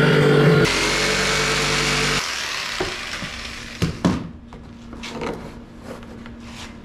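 Jigsaw running as it cuts a hole through a hollow PVC (vinyl) fence post, stopping about two seconds in. A few sharp plastic knocks follow as a vinyl rail is pushed into the cut hole.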